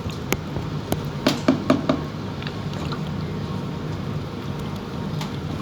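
Cooking in a pan: a utensil clicking and knocking against the pan, several quick knocks bunched together about a second in, over a steady hiss and low hum.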